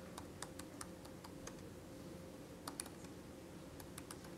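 Faint typing on an Apple laptop keyboard: irregular key clicks in short runs, with a brief pause about halfway through, as a terminal command is entered.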